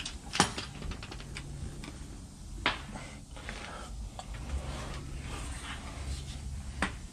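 Scattered metallic clicks and clinks of hand tools and metal parts on the truck's drive shaft, three of them sharper than the rest, over a low steady hum.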